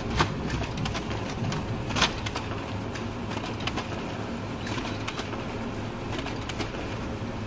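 Plastic clicks as a toner cartridge is seated in a Canon laser printer, then a louder snap as the printer's cover is shut, about two seconds in. A steady low hum lies under it throughout.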